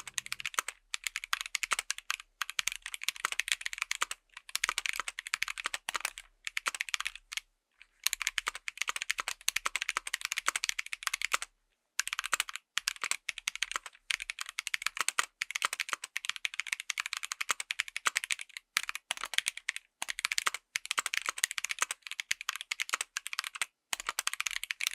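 Mechanical keyboard with Ajazz Kiwi tactile switches (polycarbonate top housing, nylon bottom housing, POM stems) being typed on in fast, continuous runs of key clacks, with a few short pauses.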